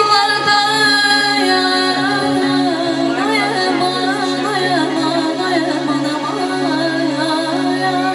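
A woman singing a slow, ornamented melody with wavering, sliding notes into a handheld microphone, over steady held low drone notes in the accompaniment.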